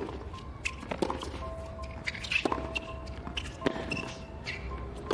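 Tennis rally on a hard court: the ball is struck back and forth by racquets with a sharp pop every second or so, and sneakers squeak briefly on the court between shots.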